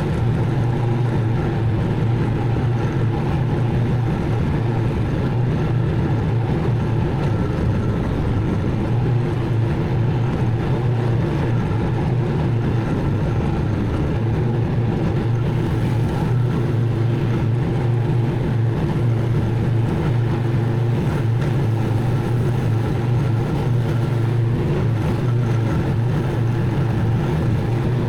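Zero-turn riding mower's engine running steadily at working speed while mowing, a constant drone with no change in level.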